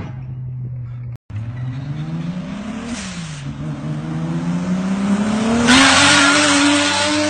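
Toyota JZ-series turbo straight-six holding a steady note, then, after a short break, accelerating hard with the revs climbing, dropping once at a gear change about three seconds in and climbing again. It is loudest near the end as the car comes past.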